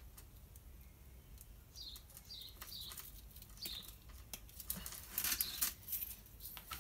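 Faint small clicks and rustling of fishing swivels, clips and line being handled and clipped together. A small bird chirps in the background several times, each chirp short and falling in pitch.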